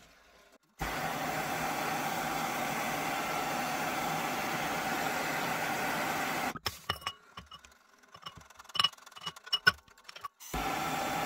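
Gas blowtorch burning with a steady hiss, heating the rust-seized barrel end of an antique percussion pistol before an ice-water quench. For a few seconds in the middle the hiss gives way to scattered light clicks and knocks, and the torch is heard again near the end.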